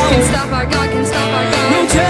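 Background music with a steady beat and a melody line over it.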